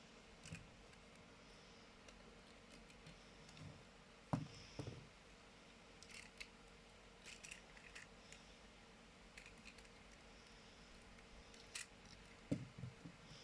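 Scattered plastic clicks and light knocks from an Optimus Prime reissue toy being handled, over a faint steady hum. The loudest knocks come about four seconds in and again near the end.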